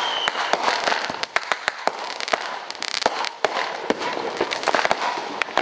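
Neighbourhood Fourth of July fireworks and firecrackers going off: dozens of sharp, irregular bangs and cracks, several a second, over a constant crackling hiss, with a brief high whistle at the start.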